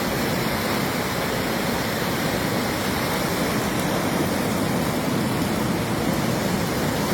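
Floodwater rushing: a steady, loud, unbroken noise of churning water.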